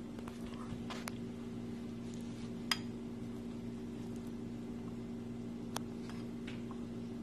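Metal fork stirring melted marshmallow and powdered sugar in a glass bowl, clinking against the glass a few times, the sharpest clink about three seconds in with a short ring. A steady low hum runs underneath.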